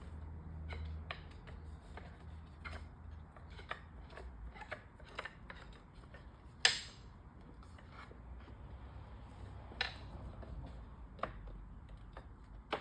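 Scattered light clicks and knocks of playpen sections being slipped into the metal Z-clips on a post, with one sharper knock about halfway through.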